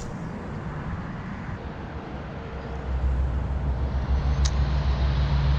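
Interstate road noise: a steady traffic rumble. About halfway through, a louder engine rumble with a low hum swells as a heavier vehicle passes, and a single sharp click comes shortly after.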